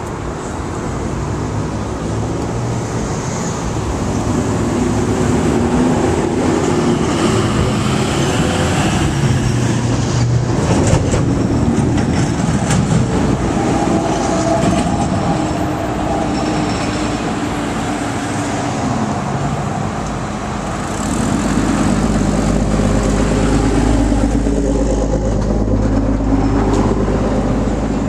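Outdoor traffic noise: the engines of passing heavy vehicles run steadily with slowly shifting low tones. A strong, steady low rumble sets in about twenty seconds in.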